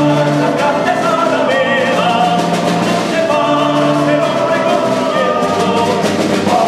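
A small folk group performing a song live, voices singing long held notes over the ensemble's instruments.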